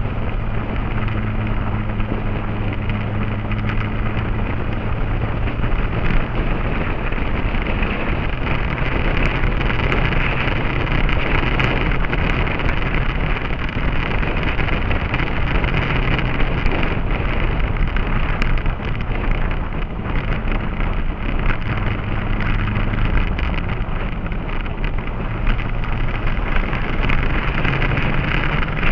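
Motorcycle on the move: wind rushing over the microphone, with the engine's steady drone underneath that rises in pitch near the end.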